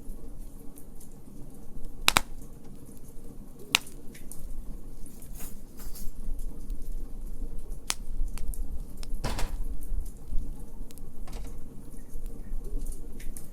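Wood fire in a fire pit crackling, with a handful of sharp pops and a longer crackle near the middle over a low, steady rumble.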